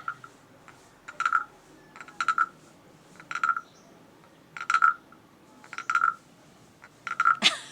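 Decorative wooden frog croaking: a stick scraped along its ridged back gives short rasping croaks, each a quick run of clicks, about seven of them roughly a second apart.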